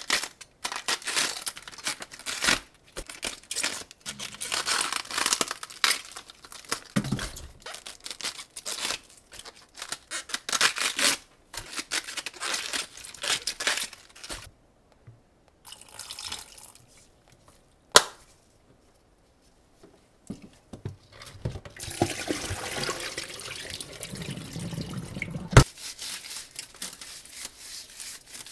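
Leaves of a head of cabbage being torn off by hand, one after another, with crisp tearing and crackling of the leaves. Later a tap runs into a stainless steel sink for a few seconds and is shut off with a click.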